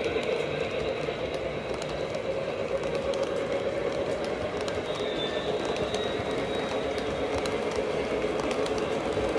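O-scale model passenger cars rolling past on three-rail track: a steady rumble of metal wheels on the rails, with many small clicks as the trucks cross the rail joints and a faint high squeal on the curve about halfway through.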